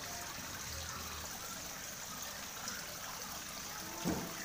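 Water trickling steadily, with one soft knock near the end.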